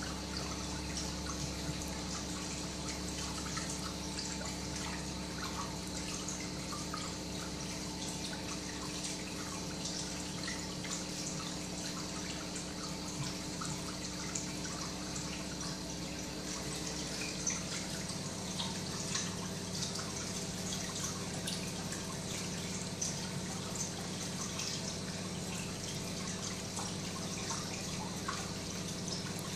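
Reef aquarium's water circulation: steady trickling and dripping water over a low, steady pump hum, with the hum's tone changing slightly about halfway through.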